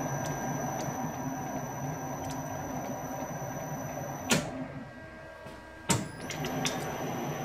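Victor metal lathe running steadily, with a low hum and a steady high whine, while a hand-held tool works the end of a spinning round bar. A sharp click comes about four seconds in, followed by a quieter stretch, then another sharp click about a second and a half later, after which the running sound comes back.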